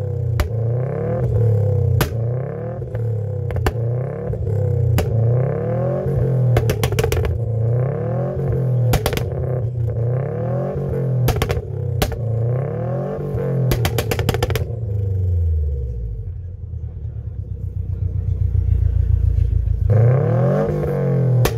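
Subaru Impreza WRX STI's turbocharged flat-four engine revved again and again through its exhaust, the pitch climbing and falling with sharp pops breaking in, some in quick bursts. About three quarters of the way through it settles to a low, throbbing idle, then revs up again near the end.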